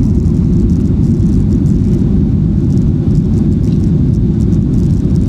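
Steady airliner cabin noise: the deep, even rumble of jet engines and airflow heard from inside the passenger cabin in flight.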